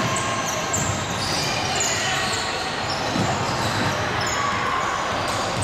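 Youth basketball game on an indoor wooden court: the ball being dribbled and sneakers squeaking in many short high-pitched chirps, under a steady din of the hall.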